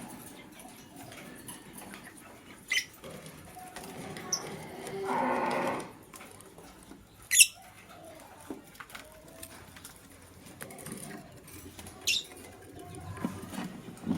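Lovebirds giving a few short, sharp chirps, the loudest about seven seconds in, with light pecking and scratching sounds between them. About five seconds in comes one longer, lower call lasting about a second.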